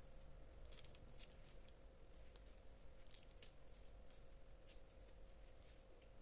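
Near silence: faint scattered crinkles and small ticks of disposable plastic gloves handling puff pastry and parchment paper, over a faint steady hum.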